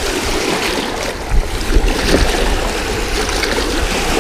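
Choppy, wind-driven lake waves splashing and washing around a person's legs among shoreline rocks, a steady rush of water with a low rumble of wind on the microphone.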